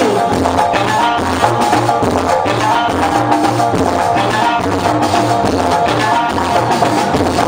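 Live Moroccan chaabi band music: banjo with hand percussion playing a steady, driving beat.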